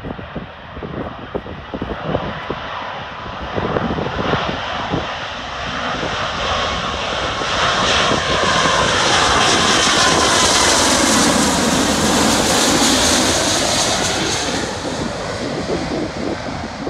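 Twin-engine jet airliner on landing approach passing low overhead: the engine noise builds, peaks for several seconds with a high whine, drops in pitch as the plane goes by, then fades. Wind buffets the microphone at the start.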